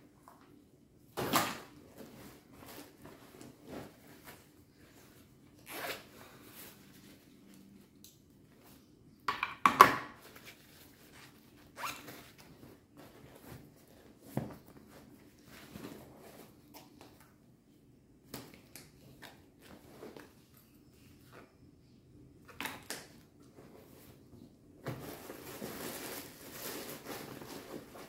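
Handling noises from a fabric tote bag being unpacked and repacked: scattered rustles of cloth and knocks of small objects, the loudest cluster about ten seconds in, and a longer rustle near the end.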